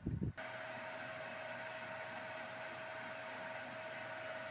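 Solar pump inverter (INVT variable-frequency drive) for a 5 hp solar water pump running: a steady hiss with a steady mid-pitched whine over it. After a brief low rumble at the very start, the sound changes abruptly to this about a third of a second in.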